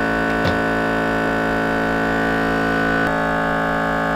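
Background music of sustained, held chords, shifting to a new chord about three seconds in.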